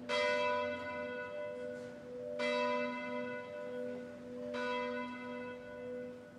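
A church bell tolling, struck three times about two seconds apart, each stroke ringing on into the next.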